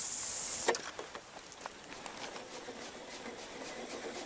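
Fishing reel being cranked to retrieve a wobbler: a sharp click under a second in, then faint, irregular ticking.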